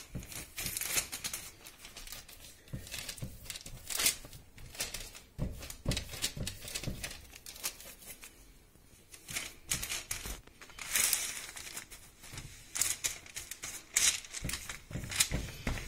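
Baking parchment crinkling and rustling under hands that press and smooth a layer of minced meat flat on it, in irregular bursts, with a few dull pats of the hands on the meat.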